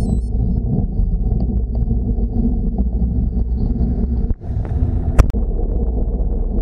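Steady low rumble of wind buffeting and road noise on a bicycle-mounted action camera's microphone while riding a road bike. It dips briefly about four seconds in, and a single sharp knock follows about a second later.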